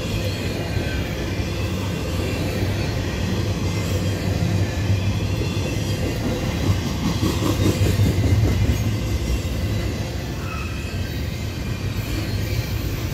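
Double-stack intermodal freight train's well cars rolling past, a steady rumble and clatter of steel wheels on the rails, a little louder about eight seconds in.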